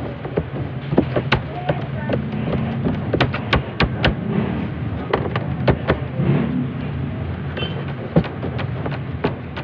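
Irregular sharp taps and knocks of hands working dough strips against a metal worktable, over a steady low machine hum.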